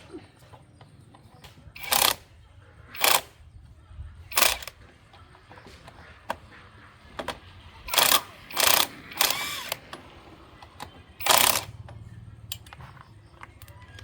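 About seven short scraping strokes of a hand tool working on metal, irregularly spaced, over a faint low hum.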